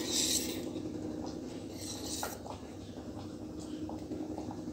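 Wire whisk stirring thick dosa batter in a bowl, scraping briefly at the start, then a few light taps of the whisk against the bowl, over a faint steady hum.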